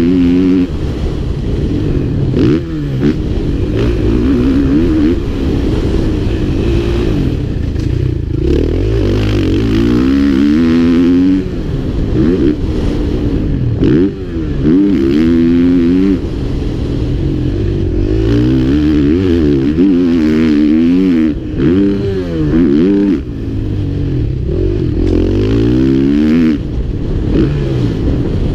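KTM 450 SX-F four-stroke single-cylinder motocross engine heard from on board, revving up and down over and over as the rider accelerates, shifts and rolls off the throttle through the track's turns and straights. The pitch climbs and falls every second or two, with a few brief dips where the throttle is closed.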